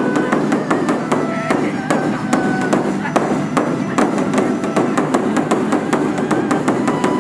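Music with a fast, clicking percussive beat and short melodic notes.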